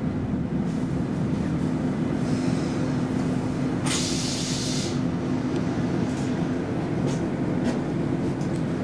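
Interior of an SL X10p electric railcar running on track: a steady low rumble with a constant hum. A short hiss comes about four seconds in and lasts about a second, and a few faint clicks follow near the end.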